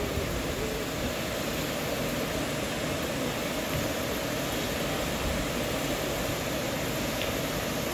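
Waterfall swollen by storm rain, pouring down a rock face as a steady, even rush of falling water.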